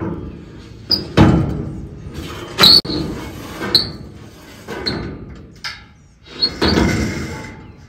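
A long, heavy piece of steel stock being slid across a truck's steel frame: about six clanks, roughly one a second, with scraping between them and several strikes ringing briefly.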